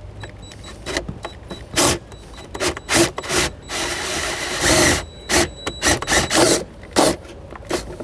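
Right-angle drill driving a 1 1/8-inch hole saw through the plastic back wall of a center console, cutting in short bursts on the trigger with one longer run about four seconds in.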